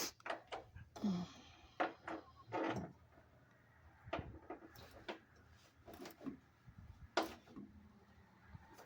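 Scattered knocks, clicks and short scrapes of hardware and tools being handled, irregular and spaced out, with the loudest knock near the end.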